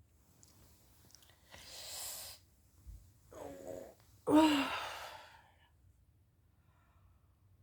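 A woman yawning: a long airy breath in, then a short voiced sound and a louder voiced yawn falling in pitch about four seconds in.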